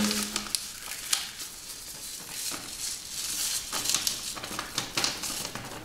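Dry seasoning shaken out of a sachet onto raw fish pieces in a plastic bowl: a light, uneven hiss of pattering granules with many small ticks.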